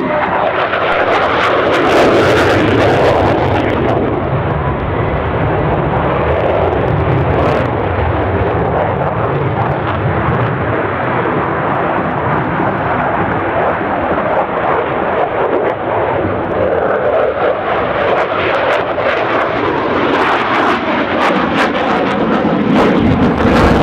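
Single-engine KAI T-50B Golden Eagle jet, its F404 turbofan giving a loud, continuous rush and rumble as it flies its display. Rougher, crackling stretches come about two seconds in and again near the end.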